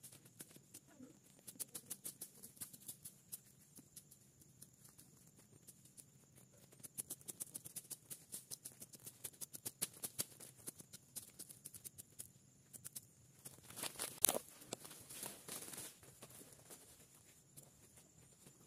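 Ferns and grass being pulled up and cleared by hand: irregular crackling and snapping of stems and leaves, in clusters, with a louder crackle about 14 seconds in.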